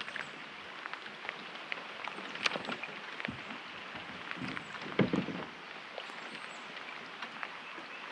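Steady rain hiss with scattered light ticks, and gear knocking and rustling in the kayak, louder about five seconds in.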